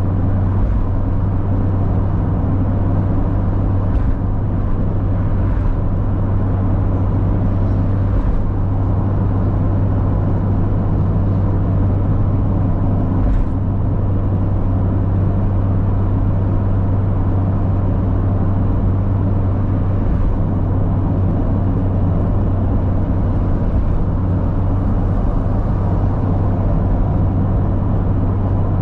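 Mazda MX-5 Miata (NA8C) 1.8-litre four-cylinder engine running at a steady cruise, with tyre and road noise heard from inside the car. It holds a constant pitch with no revving or gear changes, and a few faint ticks come through now and then.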